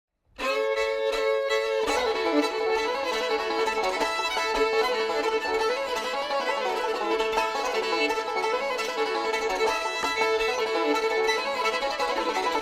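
Bluegrass-style string band music with fiddle and banjo, starting abruptly just after the beginning.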